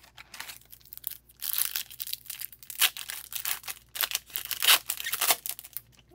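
Foil wrapper of a hockey card pack crinkling and tearing as it is ripped open, a run of sharp, irregular crackles that is loudest from about a second and a half in until near the end.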